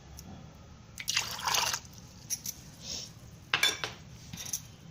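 Water being poured into sweet lime juice in a vessel: two short splashy pours, the longer about a second in and a briefer one near the end, with a few light clinks between.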